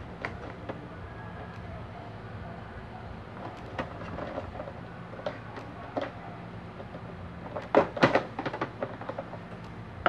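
Screwdriver and the metal parts of an electric fan motor clicking and knocking as the motor is taken apart, with a louder cluster of clatter near the end. A low steady hum runs underneath.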